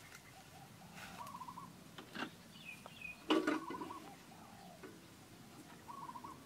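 A bird calling, a short trilled note repeated every couple of seconds, over the clatter of soot-blackened cooking pots being handled over a wood fire, with a sharp metal knock a little over three seconds in as the loudest sound.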